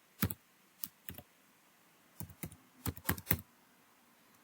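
Computer keyboard being typed on: about eight separate keystrokes at an uneven, unhurried pace, with a short pause near the end.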